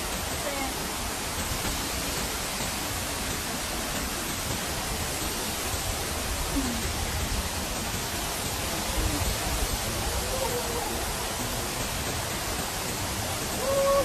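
Waterfall cascading over rocks: a steady, even rush of water.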